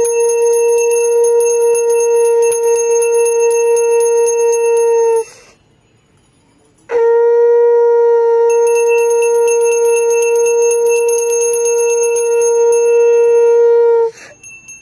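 Conch shell (shankh) blown in two long, steady blasts with a short pause for breath between them, while a small hand bell is rung rapidly throughout, as at the aarti of a Hindu puja.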